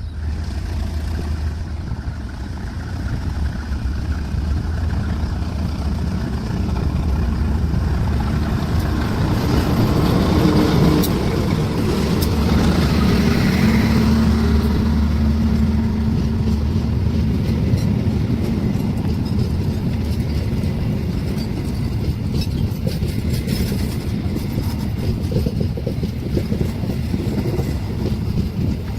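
A train running past a level crossing: a continuous low rumble that grows louder through the middle, with a steady engine hum at its loudest.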